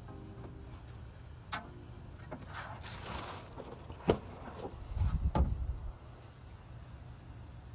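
A few sharp knocks and rustling, the loudest knock about four seconds in, followed by a brief low rumble with more knocks about five seconds in.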